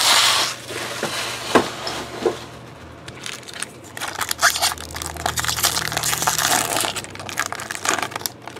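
Foil wrapper of a baseball card pack being handled and torn open: a loud rustle right at the start, then dense crinkling and crackling of the foil from about four seconds in.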